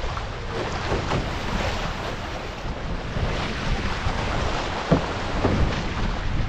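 Wind buffeting the microphone over water rushing and slapping against an OC1 outrigger canoe running downwind through chop, with paddle strokes and spray splashing now and then, the sharpest splash about five seconds in.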